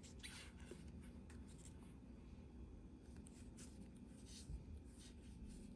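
Faint, irregular scratchy rustling of hands handling Pokémon card booster packs and cards.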